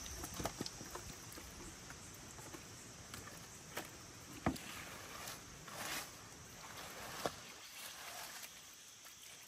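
Faint splashing and sloshing of shallow pond water, broken by a few sharp ticks.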